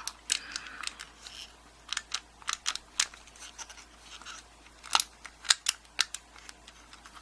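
Small irregular clicks and light scrapes of a cover being worked off a lever lock by hand, the loudest clicks about two, five and six seconds in.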